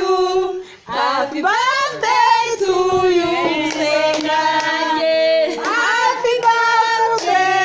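A group of women and children singing a birthday song together in Kinyarwanda, with hand clapping. The singing breaks off briefly about a second in, then goes on.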